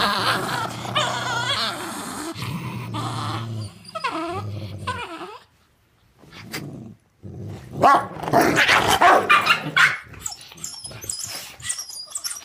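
Two dogs growling at each other in a play tug-of-war over a rope toy. Steady growling for about five seconds, a brief pause, then a louder burst of snarling and barking that tapers off near the end.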